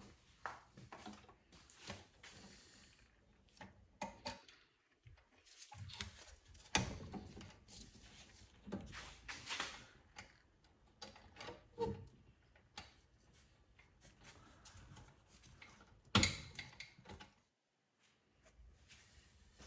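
Hands and tools working on a lawn mower: scattered small clicks, knocks, scrapes and rustles, with one sharper knock near the end.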